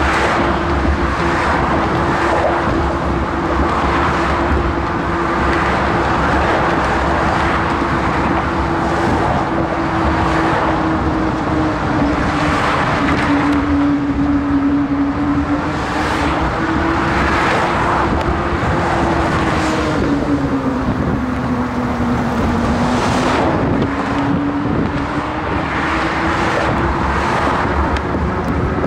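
Car traffic passing close by on a bridge roadway, with vehicles rushing past every couple of seconds over a continuous road noise. A steady mid-pitched whine runs beneath it and sags in pitch twice, around the middle and again a few seconds later.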